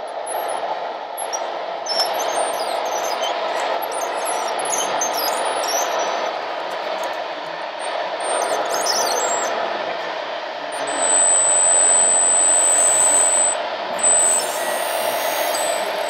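Radio-controlled model construction trucks running: a steady mechanical hum with many short high squeaks through the first half, then a thin, steady high whine for about two and a half seconds near the end.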